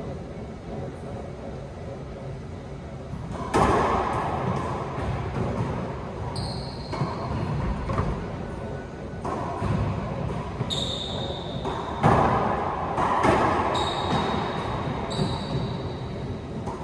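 Racquetball rally: sharp, echoing pops of the ball off the racquets and the court walls, starting about three and a half seconds in and coming every second or so, with sneakers squeaking on the hardwood floor in between.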